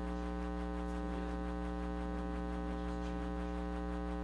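Steady electrical mains hum: a constant stack of low buzzing tones that does not change.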